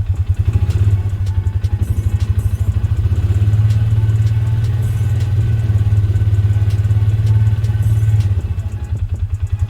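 Engine of a small off-road vehicle running as it drives, a loud low throbbing drone that smooths out in the middle and turns choppier near the end. Scattered clicks and rattles sound over it.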